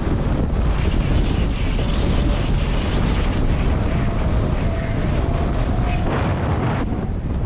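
Wind buffeting a GoPro HERO7's microphone during a downhill ski run, with a steady rushing hiss of skis sliding over packed snow; the hiss gets brighter for about a second, around six seconds in, as the edges scrape through a turn.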